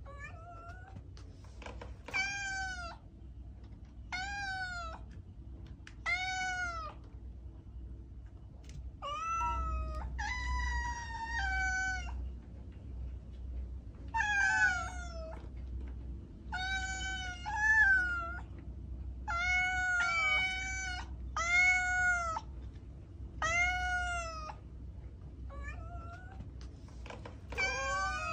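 Domestic cat meowing over and over, about one call every two seconds, some coming in quick pairs; each meow rises then falls in pitch.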